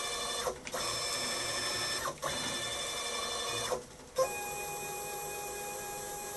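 Stepper motor of a CNC Z-axis driving its ballscrew while lifting a 17 kg load, giving a steady whine made of several high tones. It stops briefly about half a second in and again about two seconds in, then falls quiet for about half a second near four seconds. After that it runs on at a different, steadier pitch.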